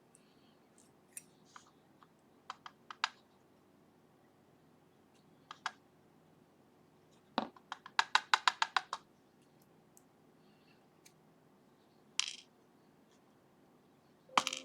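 Small metal lock parts (wafers and pin-tumbler key pins) clicking and tapping as they are taken out of a disassembled lock. There are scattered light clicks, then a quick rattling run of about ten clicks around eight seconds in, and a louder click near the end.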